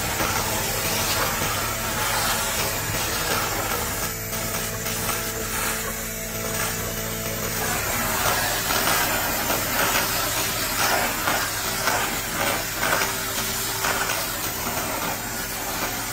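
Continuous fiber laser ablating rust and coating off a cast-iron 1958 Cadillac 365 engine block: a steady hiss, turning into dense crackling from about halfway in, over a steady low hum.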